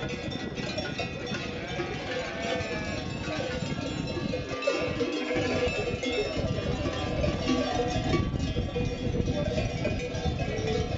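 Bells on a large flock of sheep on the move, clanking in a continuous jumble, with sheep bleating now and then among them.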